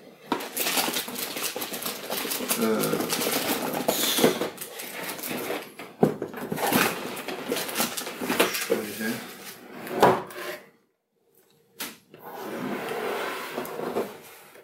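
Cardboard packaging rustling and scraping as a toy prop wand is worked free and lifted out of its box, with a few sharp knocks of plastic and cardboard. The sound stops briefly about two-thirds of the way through.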